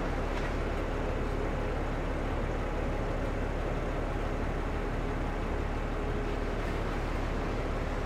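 Steady low outdoor rumble with a faint hum running through it, unchanging throughout.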